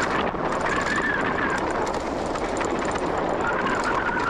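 Mountain bike coasting fast down a dirt trail: steady tyre and wind noise, with the rear hub's freewheel ratchet buzzing as a whine that falls in pitch near the end as the bike slows.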